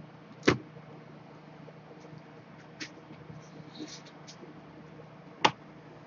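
Laptop motherboard and screen assembly being handled on a workbench: two sharp knocks about five seconds apart, with a few small clicks and a brief rustle between.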